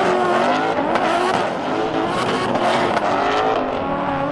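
Two drift cars running in tandem, their engines held at high revs with the pitch rising and falling as the drivers work the throttle, over the hiss of spinning, sliding tyres.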